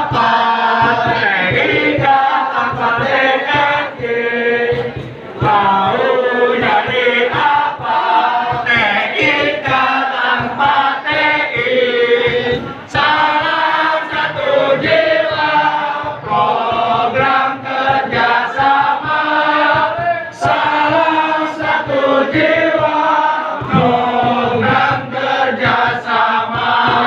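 A crowd of students singing and chanting a supporter-style cheer song in unison, many voices together, in sung phrases with short breaths between them.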